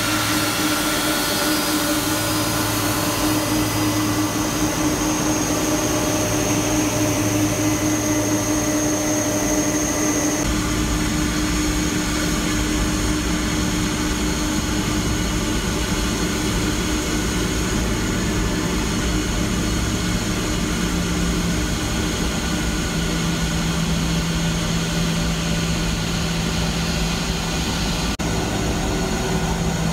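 Boeing 747-400 jet noise at close range: a steady whine and rumble with several steady tones. About ten seconds in it changes abruptly to a deeper rumble with a low steady hum.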